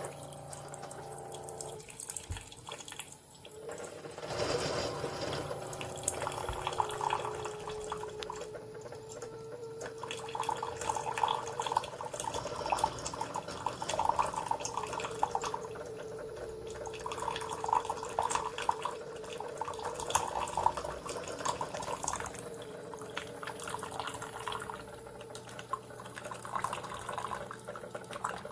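Single-serve coffee maker brewing: water trickling, gurgling and dripping through the brewer, with a steady hum underneath. The water is running down the sides of the ground-coffee basket instead of through the needle, which the reviewer blames for weak coffee.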